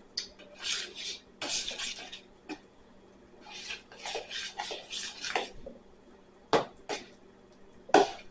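A utensil stirring and scraping a thick slime mixture around in a bowl in uneven strokes, with two sharp knocks against the bowl in the last couple of seconds.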